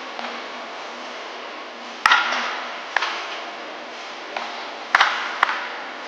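Wooden baseball bat cracking against pitched balls in batting practice: about four sharp hits, the loudest about two seconds in, each with a short echo, over steady background hiss.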